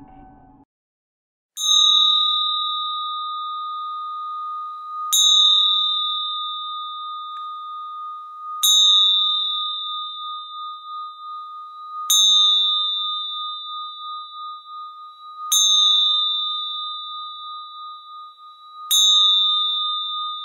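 A small metal bell struck six times, about every three and a half seconds. Each strike gives a clear, high ring that wavers slightly as it fades and carries on until the next.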